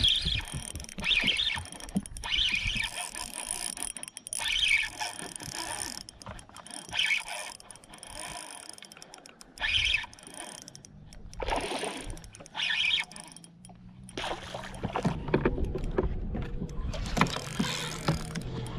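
Spinning reel being cranked, its drag giving line in short bursts, while a smallmouth bass is fought to the boat. A low hum joins in the last few seconds.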